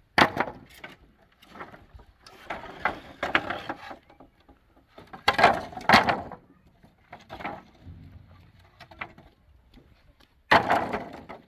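Loose wooden planks clattering and knocking against each other as they are picked up and dropped onto a pile. The clatter comes in several short bursts a few seconds apart, the loudest about halfway through and near the end.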